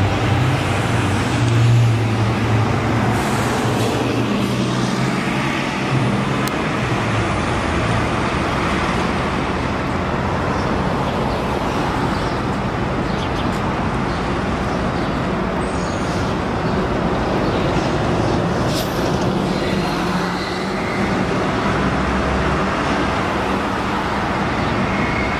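Diesel engine of a New Flyer Xcelsior XD40 city bus running as it passes and pulls away, its low hum strongest in the first few seconds, then fading into steady street traffic noise.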